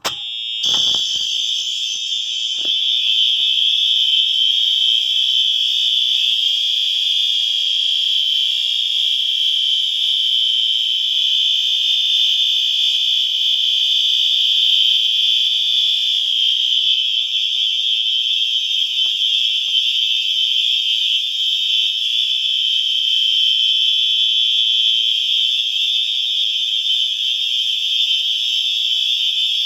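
Fire alarm horns, including a System Sensor SpectrAlert Advanced, sounding in continuous mode: a loud, steady, shrill tone that starts at once and does not pulse.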